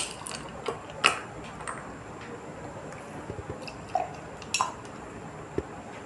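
Thick mango lassi poured from a glass blender jug into drinking glasses, with scattered sharp clinks and taps of glass on glass. The loudest clinks come at the start and about a second in.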